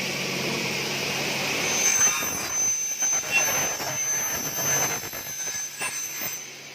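Double-head aluminium cutting saw with a 2.2 kW motor and 450 mm blade, spinning steadily, then cutting through a clamped aluminium profile from about two seconds in. A thin high whine and an uneven, rasping cutting noise run for several seconds and ease off near the end.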